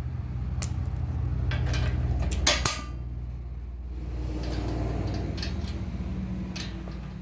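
Small steel hardware clinking and knocking as bolts, lock washers and nuts are fitted to a shop press frame, several separate clinks over a steady low hum.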